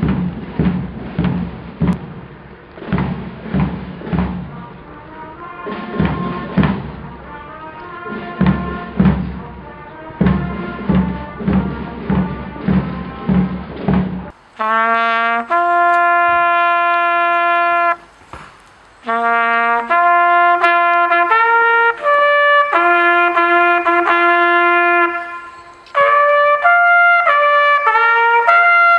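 Marching band music with a steady drum beat about twice a second and faint brass over it; about halfway through it cuts to a solo bugle call of long held notes, played at a Remembrance service.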